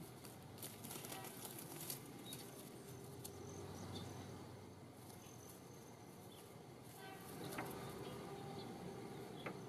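Faint rustling and clicking of dry twigs and leaves as a juvenile western kingbird flutters and scrambles through a shrub. The rustles come in a cluster in the first couple of seconds, with a few more later on.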